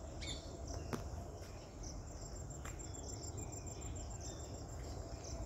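Insects chirring outdoors, with a high, rapidly pulsing trill starting about two seconds in, over a steady low background, with a few short high chirps and a click about a second in.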